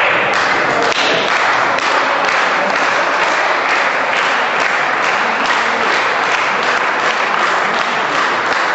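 Spectators applauding in a large sports hall: dense, steady clapping that starts suddenly.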